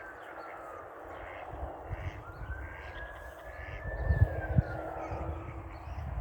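A distant wailing siren, its tone slowly rising and falling, about once every four seconds, over low rumble and knocks from wind or handling on the microphone.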